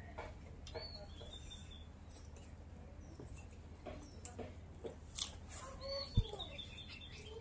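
Birds chirping in short, scattered calls over a steady low hum, with a dull thump about six seconds in.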